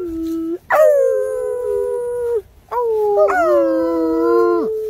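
Bloodhound howling: two long howls, each starting high, sliding down and settling on a held note, after the tail end of an earlier howl.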